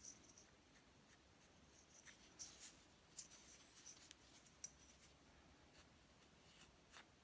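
Faint scraping and light ticks of a wooden craft stick spreading and pressing two-part Bondo all-purpose putty onto a carved wooden bird. The scrapes come in short irregular strokes, with one sharper tick near the middle.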